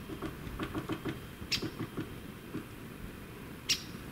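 Woodpecker foraging on a tree, tapping and pecking at the bark in quick irregular runs of light taps. Two short, sharp, louder sounds come about two seconds apart.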